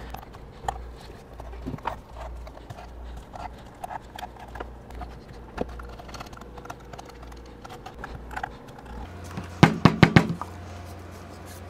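Metal tweezers picking and scraping cured gasket sealant out of the lid seam of a metal ECM housing, with small scattered clicks. Near the end comes a quick run of four or five louder knocks as the metal housing is handled against the bench.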